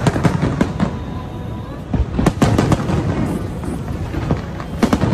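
Aerial firework shells bursting and crackling, with sharp reports coming in quick clusters near the start, about two seconds in, and again near the end.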